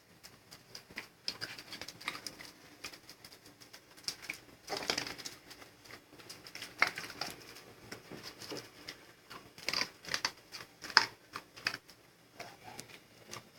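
A pet crunching dry kibble: irregular sharp crunches and clicks, louder around five, seven, ten and eleven seconds in.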